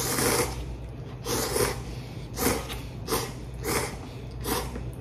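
A man slurping instant cup ramen noodles in about six short slurps, each under half a second and spaced less than a second apart.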